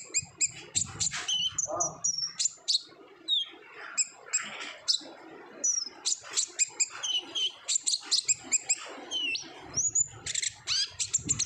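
Kolibri ninja, a small sunbird, singing energetically: a fast, unbroken run of short, high, sharp chirps and twittering slides.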